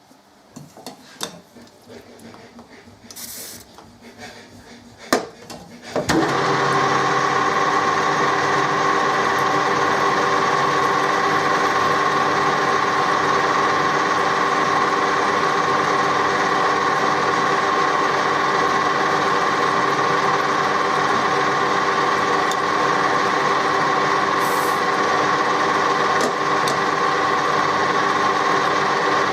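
A few handling clicks and knocks, then about six seconds in an electric drill starts and runs steadily, drilling a 3 mm hole into a hard metal cork-remover part.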